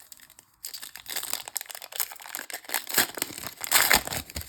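Foil wrapper of a baseball card pack being torn open and crinkled by hand, a dense crackle starting about half a second in and loudest near the end.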